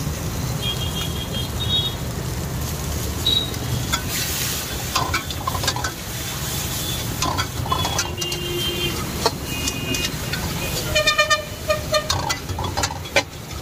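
Metal spatula scraping and clanking against a steel wok as rice is stir-fried, in quick irregular strikes from about four seconds in, over a steady low rumble. Vehicle horns toot in passing traffic, with a loud honk about eleven seconds in.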